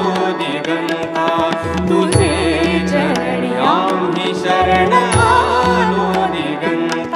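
A man and a woman singing a Marathi devotional song to Ganesh, with tabla strokes and a steady harmonium underneath.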